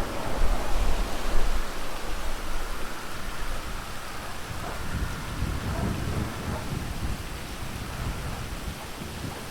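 Steady heavy rain with rolling thunder. The thunder is loudest in the first two seconds and rumbles again around five to six seconds in.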